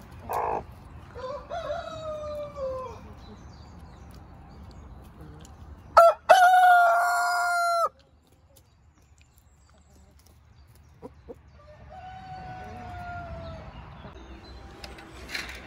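A Brahma rooster crows once, loudly, about six seconds in, holding one long call for about two seconds. Hens call and cluck around it, with shorter falling calls early on and a fainter long call later.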